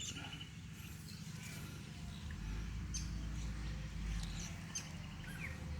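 Faint bird chirps over a low, steady background hum, with a few light clicks.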